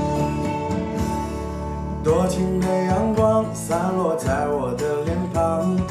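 Background music: a song with guitar and a singing voice.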